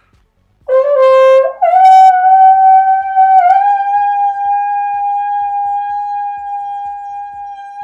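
Trombone played solo: a short lower note, then a slide up to a high note that is held for about six seconds, dipping and rising once near the middle and slowly fading.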